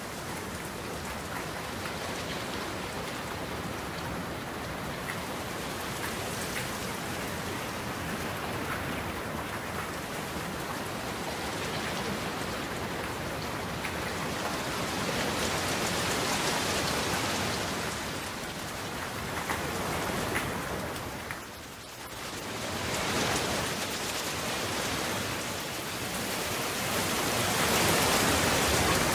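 Steady rain falling, a dense even hiss that swells louder in waves, with a brief lull about two-thirds of the way in and the loudest stretch near the end.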